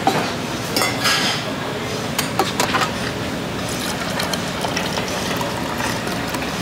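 Dishes and utensils clinking in short sharp knocks over a steady background din of a busy restaurant.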